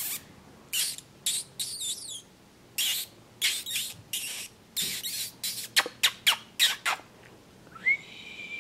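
A person making a quick series of short, sharp squeaks and clicks to catch a puppy's attention, then starting to whistle about eight seconds in.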